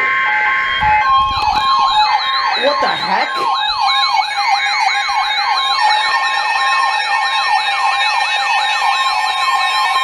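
Several NOAA weather radios sounding their alert alarms at once: steady beeping alert tones near 1 kHz overlaid by siren-like rising wails that repeat several times a second. A second radio's alarm joins about six seconds in.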